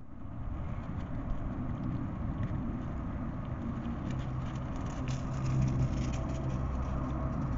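Hedgehogs eating, with faint crackling clicks from about four seconds in, over a steady low rumble.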